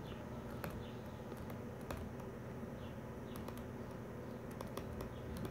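Faint, scattered light taps and clicks of a stylus on a tablet's glass screen during handwriting.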